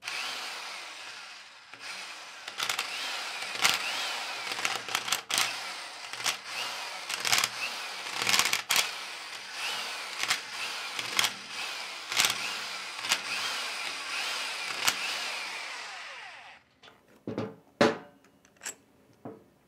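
Corded electric power tool spinning out the head bolts of a Copeland 4R/6R refrigeration compressor. The motor whines up and down again and again, with sharp clicks and knocks throughout, then stops near the end, followed by a few separate knocks.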